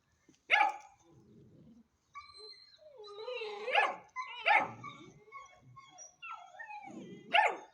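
Hanoverian scent hound puppy barking: four sharp barks spread over several seconds, with wavering whines in between.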